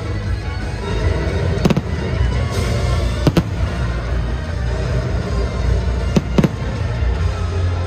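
Fireworks going off over loud show music: a sharp bang about a second and a half in, another a second and a half later, then two bangs in quick succession about six seconds in.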